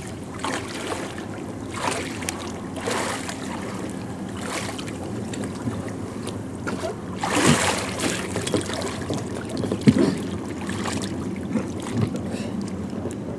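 Water splashing and sloshing in irregular bursts as a man in a life vest in the water heaves himself against the side tube of an inflatable boat, trying to climb aboard; the biggest splash comes about halfway through.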